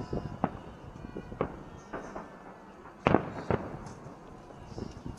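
Fireworks salute: about six shell bursts going off irregularly, each a sharp boom that rolls off in echo, the loudest pair about three seconds in.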